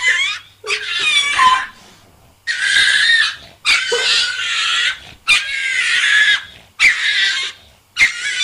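An animal squealing in a string of about seven short, high cries, each lasting up to about a second, with brief gaps between them.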